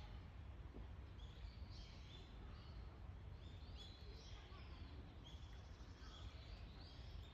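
Faint bird chirping: clusters of short, high calls repeating throughout, over a low steady rumble.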